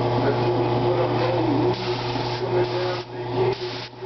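Gravity-feed compressed-air paint spray gun hissing as it sprays, dropping out briefly a few times in the second half as the trigger is eased, over a steady low hum.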